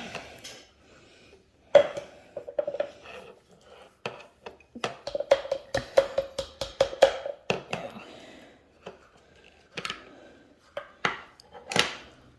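Hand-cranked Tupperware can opener being turned around a tomato paste can: runs of rapid clicking with a ringing metallic note, in several bursts with short pauses between.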